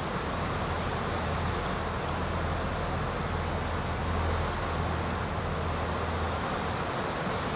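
Steady low hum over a constant background hiss, the hum cutting off about six seconds in.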